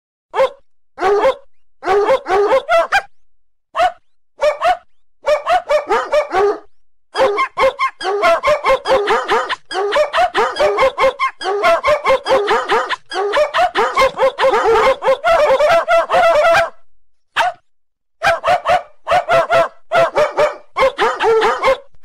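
Ringtone made of a dog's barks and yips, coming in quick runs separated by short breaks, with a long unbroken run in the middle.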